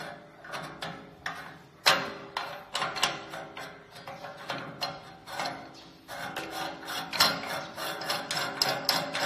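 Irregular metal clicks and clinks, several a second with short ringing, as a large nut is threaded by hand onto the shaft of a stainless-steel dumpling machine. There are sharper knocks about two seconds in and again about seven seconds in.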